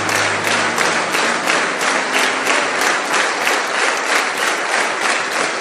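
Large seated audience applauding: a dense, steady clatter of many hands clapping.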